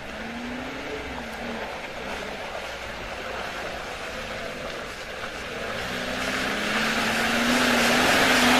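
Lada Niva's engine revving under load as it ploughs through a deep muddy rut, its pitch rising and falling about a second in, then climbing and holding as it draws closer. Mud and water splash off the wheels, and the whole sound grows louder over the last few seconds.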